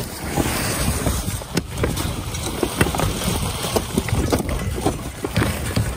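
Old asphalt shingles being torn off a roof: tear-off tools prying and scraping, with many irregular knocks and clatters of loose shingles, over wind noise on the microphone.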